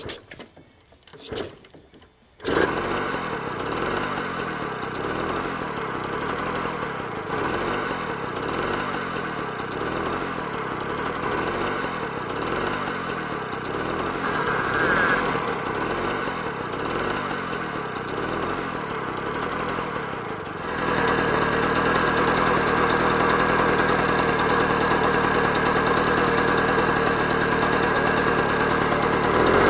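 Jawa 555 moped's 50 cc single-cylinder two-stroke engine being kick-started cold with the air-filter slide (choke) closed. A few short clatters come first, then the engine catches about two and a half seconds in and runs with a wavering beat. About 21 seconds in it turns louder and steadier, held at higher revs.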